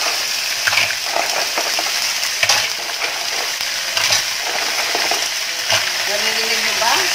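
Green mussels sizzling in hot oil in a stainless steel pot as they are sautéed with onion, garlic and ginger, with a steady hiss and scattered clacks of shells knocking against each other and the metal ladle as they are stirred.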